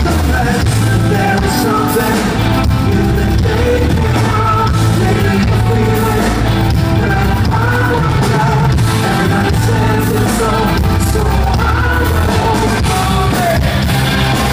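Rock band playing live, with a male lead vocal over electric guitar and drums, heard loud from within the audience.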